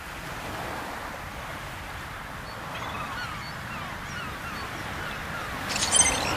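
Birds calling in a run of short, repeated, falling notes from a few seconds in, over a steady background rush. A brief bright burst of high-pitched noise comes near the end.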